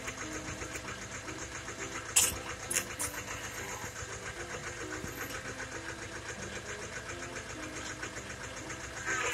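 Tractor engine running steadily, turning the PTO shaft that drives the hydraulic pump of a Ceccato Bull SPLT16-650 vertical log splitter. Two short knocks come about two and three seconds in.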